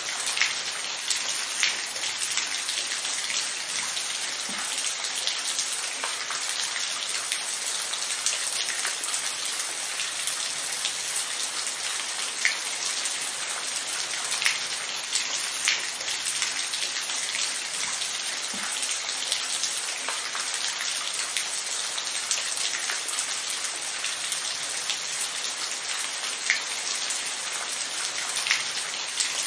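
Steady rain falling, a continuous hiss with individual drops ticking sharply here and there on a hard surface.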